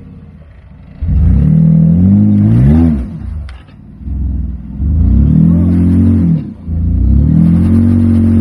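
Jeep Wrangler JK's engine under load climbing a rock ledge: a low idle, then about a second in it revs hard in three surges, the pitch rising and dropping, the last surge held.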